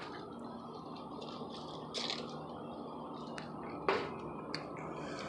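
Faint handling noise from a phone being moved about: a few light clicks and rustles, with one sharper click about four seconds in, over a steady low background hum.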